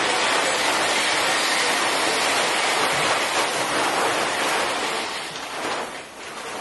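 A steady hissing rush of noise, like heavy rain or static, easing off about five to six seconds in.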